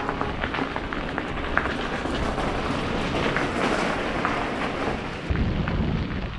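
Mountain bike tyres rolling over loose gravel: a steady crunching hiss full of small pops and clicks. About five seconds in, a low wind rumble on the microphone joins it.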